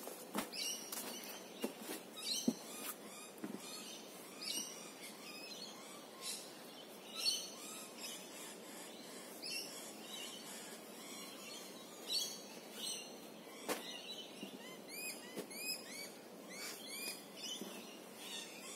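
Wild birds chirping over and over with short high calls, with a quick run of rising chirps in the last few seconds. A few sharp knocks or scuffs stand out now and then.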